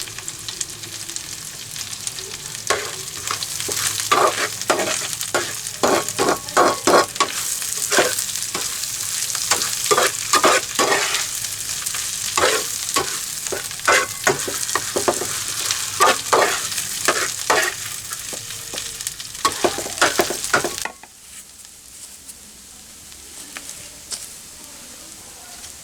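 Food sizzling in a hot oiled pan while a utensil stirs and scrapes it, in quick clusters of strokes over the steady sizzle. About 21 seconds in the sizzle and stirring drop off sharply to a much quieter hiss.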